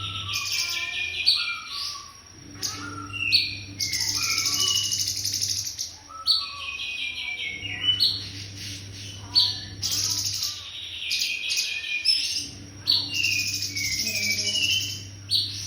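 A cungkok songbird singing loudly: bursts of rapid, chattering trills and sharp gliding notes, repeated every couple of seconds. A steady low hum runs underneath.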